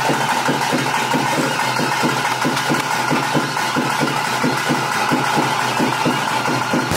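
Ritual music for a Guliga kola performance: drums beating a fast, even rhythm of about four strokes a second under a sustained, steady piping tone.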